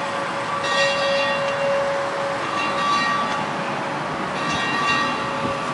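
A metal bell struck three times, about every two seconds, each stroke ringing on with a bright, many-toned sound over a steady lower hum.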